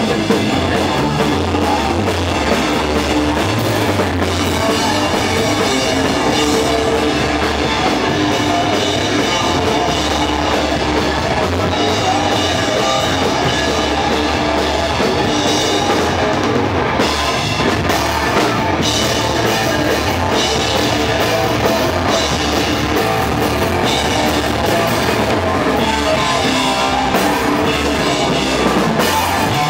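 Live rock band playing loudly and without a break: guitars over a drum kit with cymbals.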